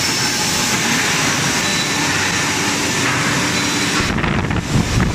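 Loud, steady machinery din of a hot forging line, with a constant hiss. About four seconds in, a low rumble comes up and the hiss drops away.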